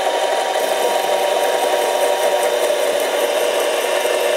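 Harbor Freight 93212 7x10 mini lathe running under cut, its tool bit taking a cut at the end of a spinning metal tube: a steady running noise with a few faint held tones and the scraping of the cut.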